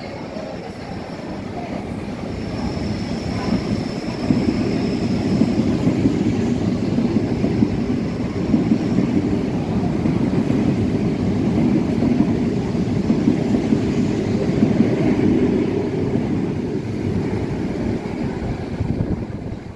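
Electric multiple-unit commuter train running past the platform: the wheel-on-rail rumble builds over the first few seconds and stays loud, with repeated knocks as the wheels pass, then eases off near the end. A thin high whine sounds for a few seconds early on.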